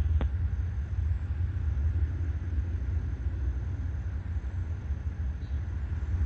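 Steady low rumble of the Delta II rocket climbing under power, heard from the ground, with two faint clicks right at the start.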